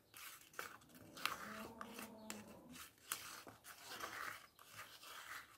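A metal spoon scraping and clicking against the sides of a small plastic cup while stirring a paste of white glue, starch and paint. The sound is faint, with irregular clicks and short scrapes.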